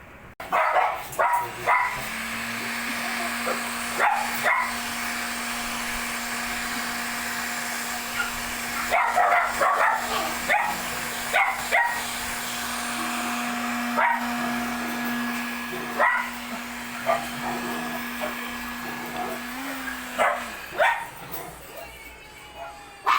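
A dog barking repeatedly in short separate barks over a steady machine hum that starts about two seconds in and stops a few seconds before the end.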